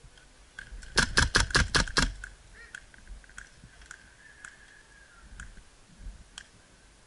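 A quick string of six sharp shots from a suppressed Umarex MP7A1 airsoft gun, about six a second, starting about a second in. A few faint clicks follow.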